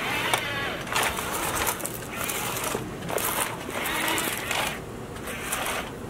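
Electric gear motors of a Huina remote-control toy excavator whirring in several short bursts as its arm and tracks are driven, the whine rising and falling in pitch.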